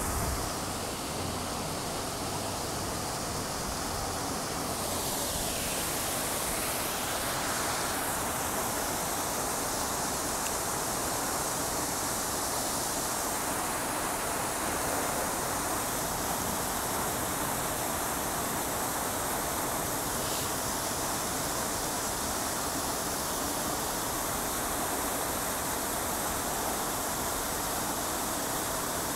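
Revson Fountain's rows of water jets splashing into the fountain pool: a steady rush of falling water.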